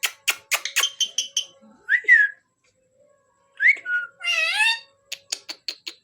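Pet parrot giving short whistled chirps that rise in pitch, about two seconds in and again past the middle, then a longer call that wavers in pitch, among runs of sharp clicks.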